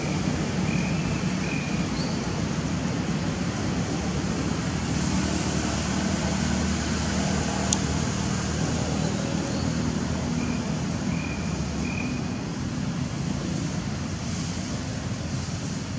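Steady rushing outdoor noise with a low hum underneath. A few faint short chirps come near the start and again around two-thirds of the way in, and a single sharp click sounds about halfway through.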